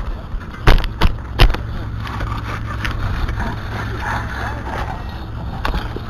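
Steel bow rake dragged through rocky dirt and gravel, its tines scraping and grating over the stones. It gives three sharp knocks about a second in and two more near the end, as the rake strikes rocks.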